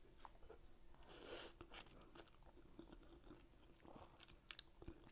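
Quiet close-up chewing of a mouthful of linguine with clams and scallops: soft, wet mouth sounds with small clicks scattered throughout.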